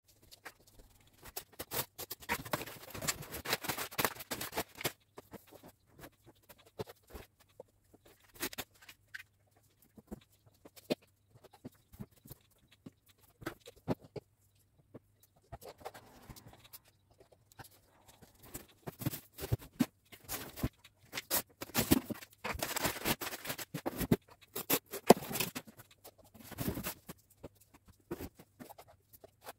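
Cardboard shipping boxes being opened and unpacked by hand: cardboard flaps, packing tape and wrapped items rustle, crackle and knock in irregular bursts, with a quieter lull in the middle.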